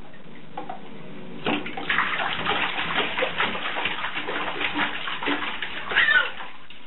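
A baby kicking and flailing in shallow bathtub water, with irregular splashing that starts about a second and a half in. Near the end the baby lets out a short high squeal.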